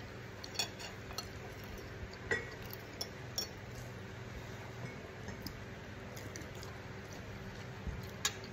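Metal spoon and fork clinking against a ceramic bowl while eating, about half a dozen short clinks, most in the first few seconds and one near the end. A steady low hum runs underneath.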